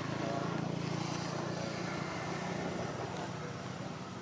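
A motor engine's steady low hum, loudest near the start and slowly fading.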